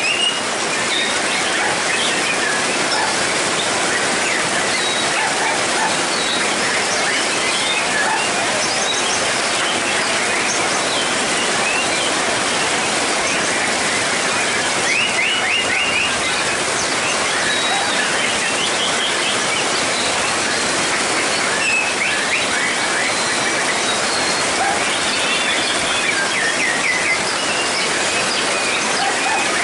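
Heavy rain pouring on the roof as a steady loud hiss, with a white-rumped shama's song breaking through it in short runs of quick, rising notes several times.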